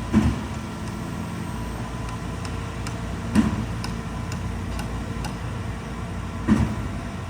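An engine running steadily, with three heavy, dull knocks evenly spaced about three seconds apart.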